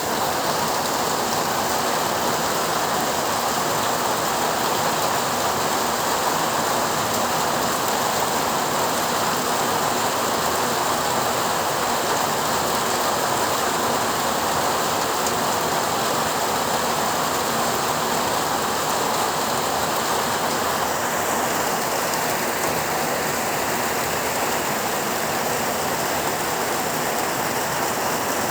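Heavy rain falling steadily: a dense, even downpour with no thunder.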